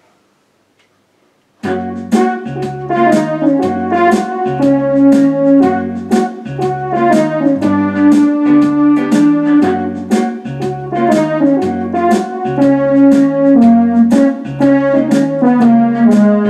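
Electronic arranger keyboard playing a blues piece, starting suddenly about two seconds in: a stepping bass line and an even drum rhythm from the auto-accompaniment under chords and a melody voice.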